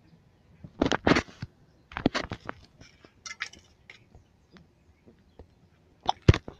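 Footsteps crunching on loose gravel: a few slow, spaced steps, with the sharpest crunches about a second in, at about two seconds, and near the end.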